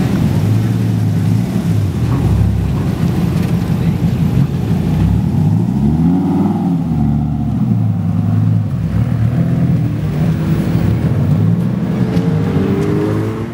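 Devon GTX's V10 engine running at low revs as the car pulls away slowly. It revs up and back down about six seconds in, and the revs climb again near the end.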